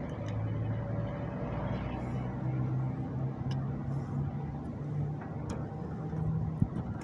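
Air-conditioner outdoor unit running on a replaced capacitor, giving a steady low hum that wavers in strength. A single sharp click comes near the end.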